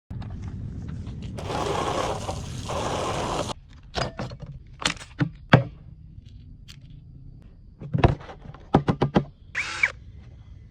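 Workshop handling noises as parts are worked on: a noisy scrape or hiss lasting about two seconds, then a run of sharp knocks and clicks, and a brief squeak near the end.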